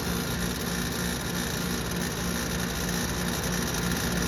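Failing compressor in a 2014 Concord air-conditioner condensing unit, with an LG compressor, running alongside the condenser fan. It makes a steady low hum that flutters slightly over the fan's rushing noise, which is taken as the sign that the compressor is dying.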